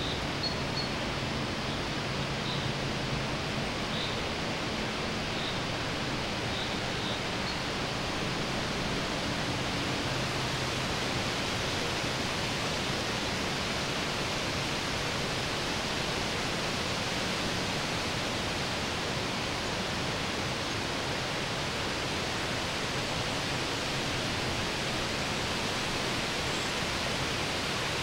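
A steady, even hiss of outdoor background noise, with a faint low hum that fades out about ten seconds in and a few faint high blips in the first several seconds.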